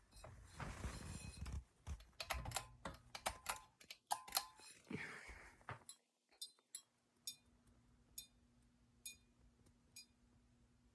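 Sharp clicks and rustling, as of something being handled, for about six seconds. Then a Hunter Westminster ceiling fan's motor runs with a faint steady hum and a light tick about once a second.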